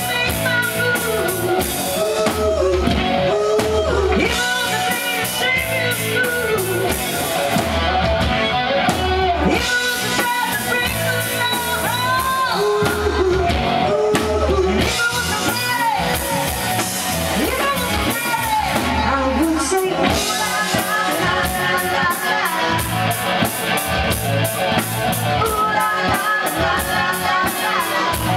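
Live rock band playing: a woman sings lead over electric guitar, keyboard and a steady drum beat.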